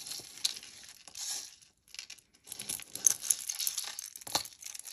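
Crinkly packaging being handled as a piece of jewelry is taken out and looked over, with small clicks throughout and one sharper click about four seconds in.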